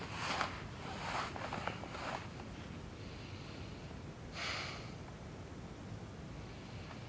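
A man lying back in a camp chair breathing out heavily: a few rough breaths with a little rustling in the first two seconds, then one longer sigh about four and a half seconds in.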